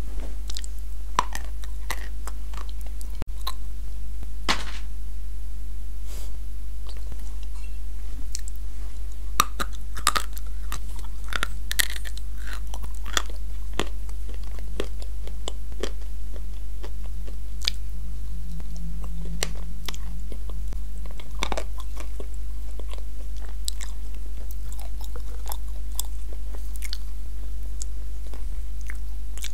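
Close-miked chewing and crunching of edible clay (pressed clay 'cookies' and a creamy clay paste), with scattered crisp crunches and small clicks, over a steady low hum.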